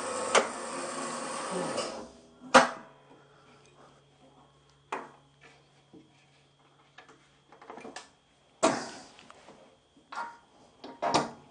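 A steady whir stops about two seconds in. Then come metallic clunks and knocks from a bandsaw's cast table as it is tilted the other way and its tilt mechanism is worked, the loudest just after the whir stops and a few more spread out, with a faint steady hum between them.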